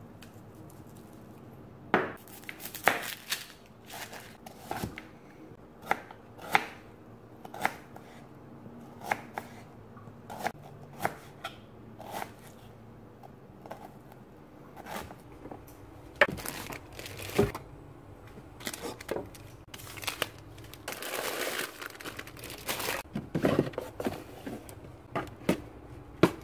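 A kitchen knife chops on a plastic cutting board in single, irregular strokes, roughly one a second. Near the end there are a couple of seconds of rustling.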